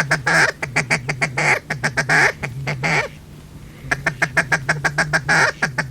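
Duck call blown in fast runs of quacks, a break of about a second three seconds in, then another run: a hunter calling to ducks circling the spread.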